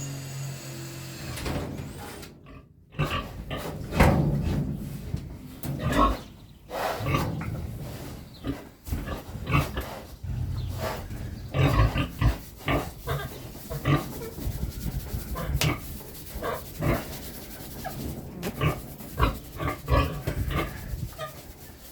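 Pigs grunting, many short grunts in irregular succession, after a steady hum in the first second or so.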